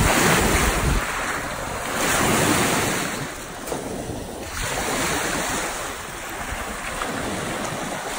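Small waves washing up and draining back over a pebble shore, the wash swelling and falling every two seconds or so. Wind buffets the microphone.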